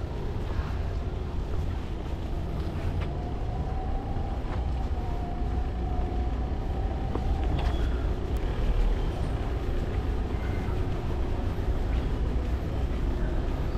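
Street traffic: a motor vehicle passing with a steady low rumble and a faint whine that rises slightly in the middle.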